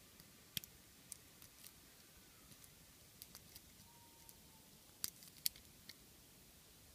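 Single pin picking a pin-tumbler lock with spool pins: faint, irregular small metallic clicks as the pick lifts pins and they set against the tension, about ten in all, the loudest cluster about five seconds in.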